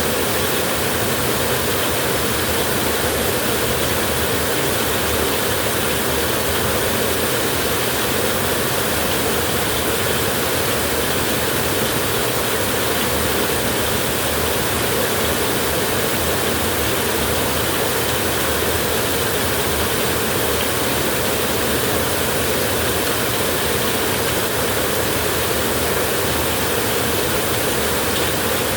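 Steady hiss of light drizzle, even and unbroken, with no thunder rumble standing out.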